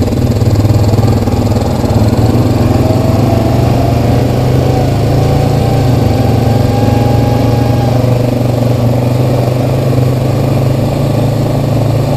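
Honda Rancher 420 ATV's single-cylinder engine running steadily under way on a dirt trail, with a faint whine that rises slightly a few seconds in and fades out about two-thirds of the way through.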